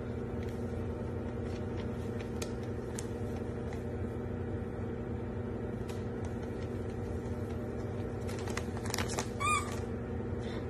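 Wrapping paper crinkling and rustling in short bursts as a small plush dog toy is wrapped, with a brief high squeak about nine and a half seconds in, over a steady low hum.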